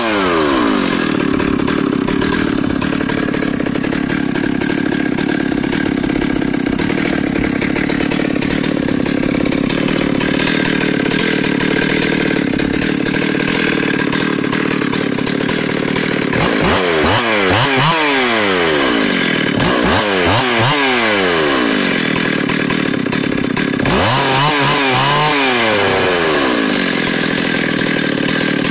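Ported Stihl 028 AV Super two-stroke chainsaw with a dual-port muffler running steadily while it warms up, then revved up and let back down three times in the second half.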